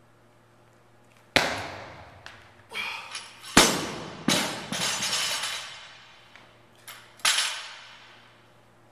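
Loaded barbell with rubber bumper plates coming down onto a wooden lifting platform: several heavy thuds with metallic clanking and rattling from the plates and collars. The loudest hits come about a second and a half and three and a half seconds in, with a rattle after them, and there is one more hit near the end.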